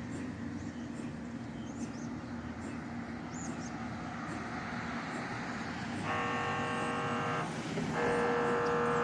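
Steady low hum, then about six seconds in an MRI scanner starts buzzing loudly in pulsed blocks of a steady multi-tone drone, heard from outside the mobile MRI trailer; it breaks off briefly and starts again near the end.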